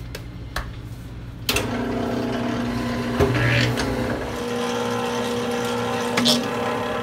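Electric pasta sheeter (cilindro) switched on about a second and a half in and running with a steady motor hum, with a knock near 3 seconds and another near 6 seconds.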